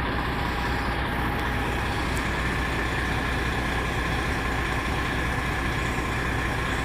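Truck engine idling steadily, a constant low hum with a faint steady whine on top.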